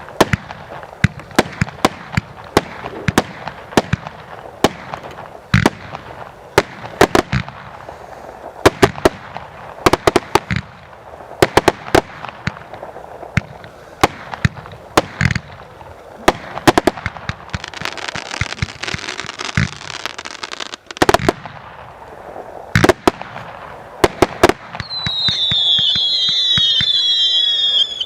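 A 90-shot, 0.6-inch firework cake firing: a rapid, irregular string of launch thumps and sharp aerial bangs. About two-thirds of the way through, a few seconds of dense crackling ring out, and near the end several whistling comets shriek together in high, wavering whistles.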